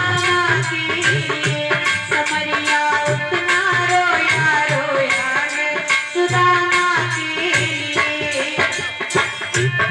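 Instrumental interlude of a devotional bhajan: a melody instrument over fast, steady percussion strokes.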